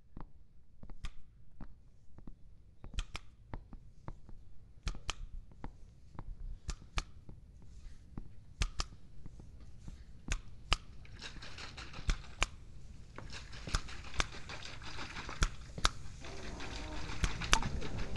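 Sharp clicks or knocks at an uneven pace. A rushing noise swells up about two-thirds of the way in and grows steadily louder to the end.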